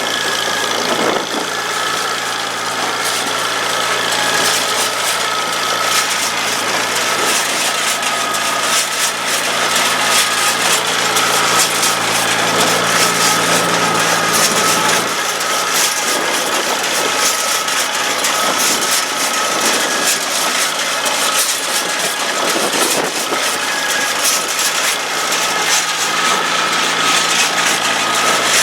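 International Harvester Cub four-cylinder flathead engine on a 1952 McCormick-Deering No. 50-AW baler, running steadily.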